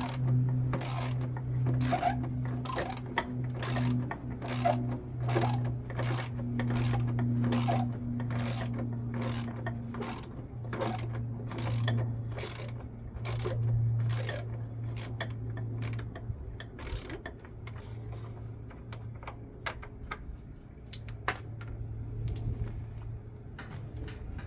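A ratchet tool clicking steadily, about two to three clicks a second, as screws are backed out of a washing machine's outer drum. The clicks thin out to a few scattered ones over the last several seconds, over a steady low hum.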